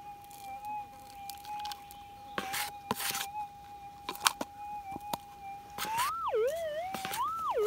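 Minelab GPX 6000 gold detector holding a steady threshold hum, with soil clicking and rattling in a plastic scoop. About six seconds in the tone swoops up and down in pitch as the scoop is moved over the coil: the detector signalling a target in the scoop.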